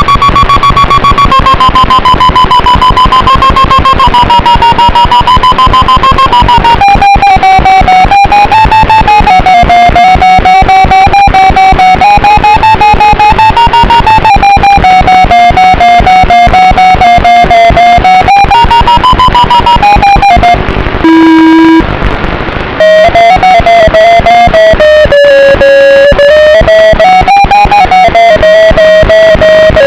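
Loud background music led by distorted electric guitar, with a steady beat and a brief break about two thirds of the way in.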